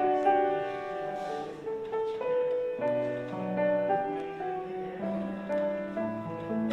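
Slow piano music: held notes and chords that change about once a second.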